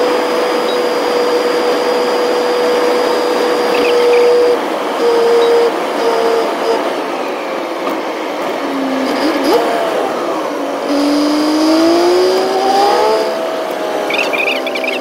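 Semi-truck cab at highway speed: steady road and engine noise with a whine whose pitch holds steady at first, then drops and climbs again in the second half.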